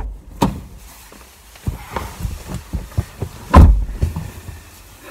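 Car door latch clicks and knocks as someone climbs into the driver's seat of a Nissan SUV, then the driver's door shuts with a heavy thud about three and a half seconds in.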